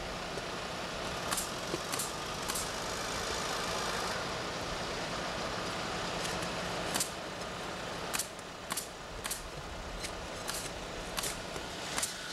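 Front-end loader tractor's engine running steadily, with many sharp, irregular taps over it, most of them in the second half.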